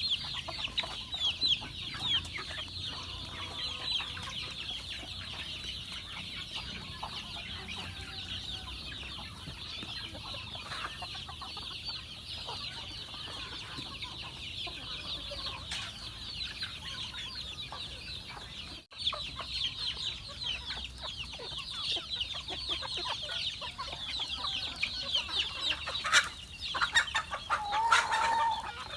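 A flock of chickens clucking and calling, with a dense, steady high-pitched chatter throughout and a few louder, lower calls near the end.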